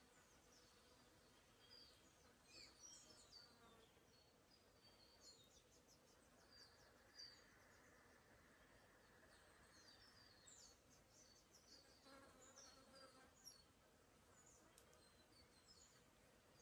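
Faint forest birdsong: many small birds chirping and twittering in short, high notes throughout. An insect buzzes for a few seconds midway.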